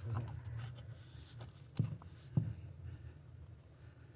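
Scraping and handling noises with a low rumble, and two short dull knocks about two seconds in, as a plastic floor drain fitting is shifted and set into place.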